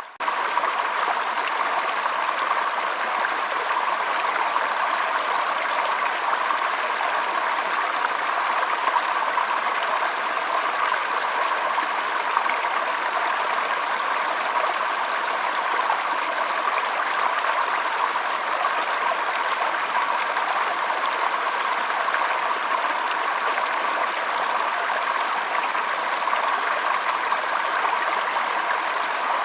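Flowing water running steadily, an even rush with no breaks, apart from a split-second dropout right at the start.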